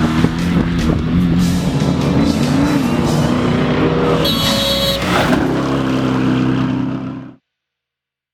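Off-road race truck engines running and revving under rock music, all cutting off abruptly about seven seconds in.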